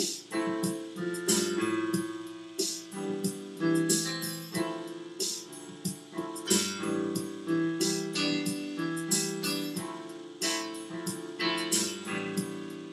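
Background music: keyboard chords over a steady beat.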